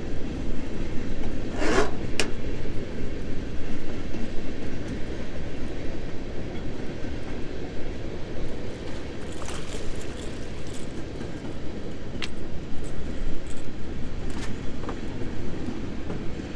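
A steady low rumble throughout, with a few sharp clicks and knocks from fishing gear being handled about two seconds in and again in the second half.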